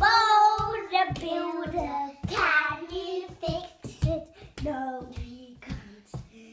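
Young girls singing loudly in high children's voices, with short knocks and thumps scattered through it.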